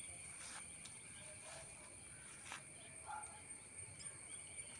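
Faint, steady insect shrilling in two high-pitched tones, with a few soft taps in the first seconds.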